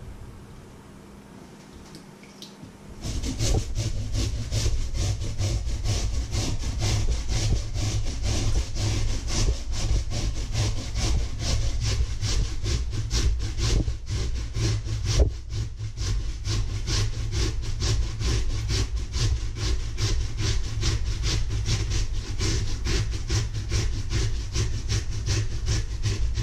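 Peeled potato being grated on a metal box grater into a steel bowl: a rapid, even run of scraping strokes that starts about three seconds in.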